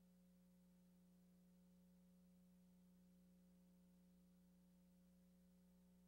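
Near silence, with a faint steady electrical hum: one low tone with weaker higher tones above it, unchanging throughout.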